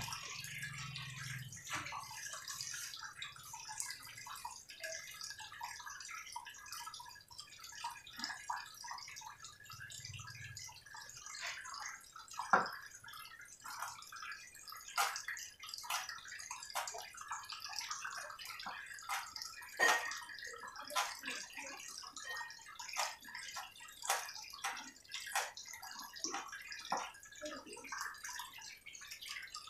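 A knife tapping and knocking on a thick wooden chopping board as meat is sliced, in irregular light clicks several times a second with a few louder knocks.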